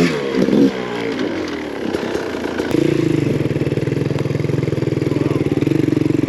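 Off-road dirt bike engine idling steadily close by. It comes in sharply about three seconds in with an even run of firing pulses.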